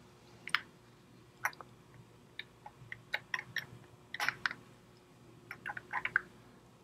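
Knurled steel spanner tool being turned by hand on the threaded end of a Kurt HDL double-station machine vise, giving irregular light metallic clicks and ticks. They come singly at first, then in clusters, loudest about four seconds in and again near the end, over a faint steady hum.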